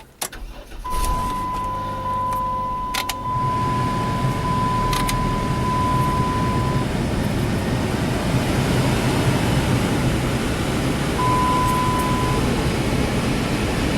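Minivan cabin with the ignition switched on. A steady electronic warning tone sounds for several seconds and briefly again later. After a click about three seconds in, the heater blower fan runs steadily, a loud even rush of air with a low hum.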